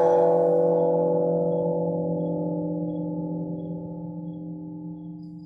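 A large bell, struck once just before, rings out with several steady tones and fades slowly. Faint, evenly spaced high chirps sound far above it.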